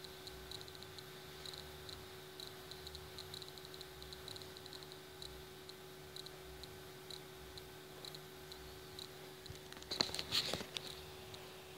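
Faint clicking and handling of wire harnesses and plastic connectors on a TV motherboard, with a louder cluster of clicks about ten seconds in as a white multi-pin connector is pushed onto the board's pin header. A faint steady hum runs underneath.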